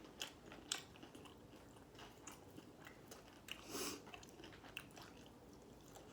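Faint close-up chewing of Popeyes fried chicken: soft wet mouth clicks and smacks scattered throughout, with one louder crunchy bite about four seconds in.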